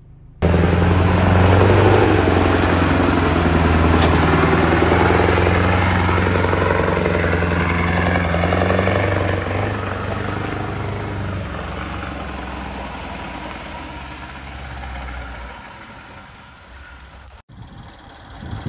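Heavy delivery lorry's diesel engine running as the low-loader carrying the new John Deere machine arrives, a steady low engine note that starts suddenly, is loudest in the first few seconds and then gradually eases off.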